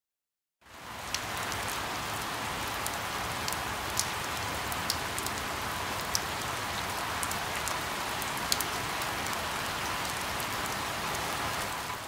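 Steady rain falling, starting about half a second in, with scattered sharper hits of single drops.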